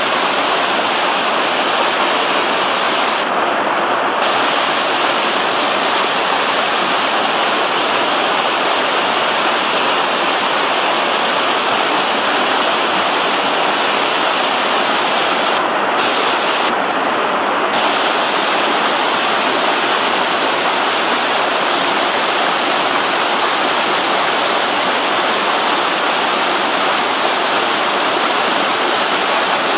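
Mountain waterfall and stream water rushing and splashing in a steady, unbroken roar of falling water.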